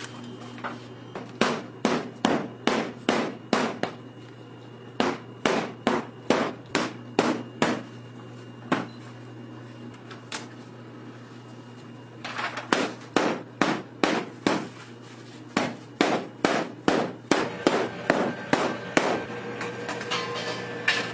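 Runs of sharp, hard knocks, about three a second, broken by short pauses, over a steady low hum.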